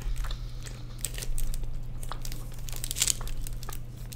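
A wooden fork digging and scraping through loaded fries in a foil-lined tray, with the foil crinkling in scattered small crackles and a louder crinkle about three seconds in.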